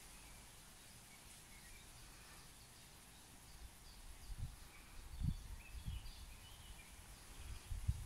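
Faint outdoor ambience with a few short bird chirps over a soft hiss. From about halfway, irregular low rumbling bumps come and go, the loudest about five seconds in.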